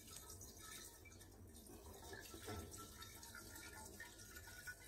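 Faint trickle of water poured from a plastic dipper into the priming port of a jet water pump, filling the pump casing to prime it.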